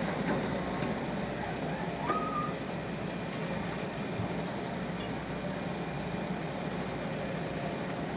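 Excavator engine running steadily under work, with a short high squeak about two seconds in.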